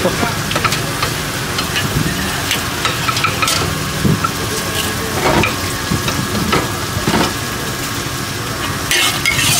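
Noodles sizzling in a large steel wok over a fire while a metal spatula stirs and scrapes them, with sharp scrapes and clanks against the wok every second or so.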